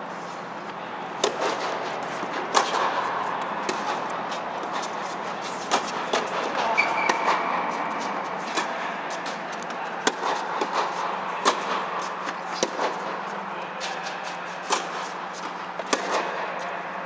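Tennis balls struck by rackets: sharp pops about every second or so, irregularly spaced and varying in strength, over a steady background hum.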